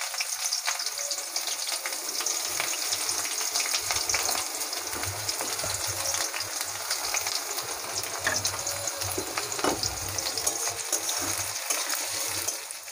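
Sliced onions sizzling in hot oil in a metal karahi, with many small pops, as a spatula stirs and scrapes them; the sizzle drops off sharply near the end.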